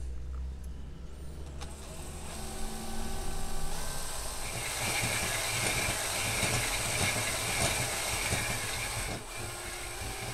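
Small handheld power tool's motor spinning a bobbin to wind enamelled copper wire into a motor coil. Its whine steps up in pitch over the first few seconds, runs faster and louder for a while, then eases down near the end.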